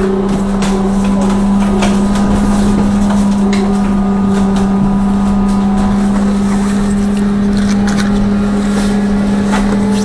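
Inside a moving trolleybus: a loud steady electric hum holds one pitch throughout, over a low road rumble. Scattered short clicks and rattles come from the body.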